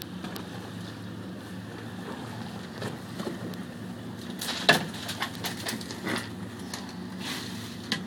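A boat's engine idling low and steady, with a sharp knock about four and a half seconds in and several lighter knocks and clatters after it.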